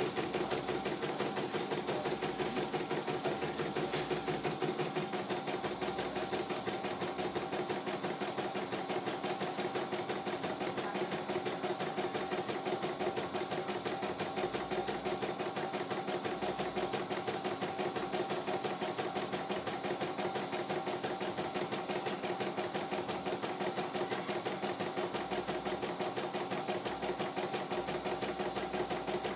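CNY E900 computerised embroidery machine stitching a design: its needle running at a steady, fast rate with the motor humming evenly.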